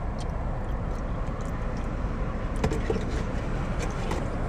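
Steady low rumble inside a running car, with a few faint clicks.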